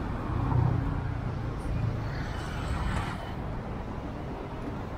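City street traffic: a motor vehicle passing close by with a low engine rumble, loudest in the first three seconds, over the steady noise of the avenue.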